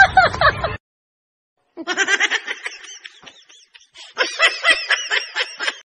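A person laughing in two bouts of quick, rhythmic laughs, the first starting about two seconds in and the second about four seconds in, with a short silence between them. An earlier sound cuts off abruptly under a second in.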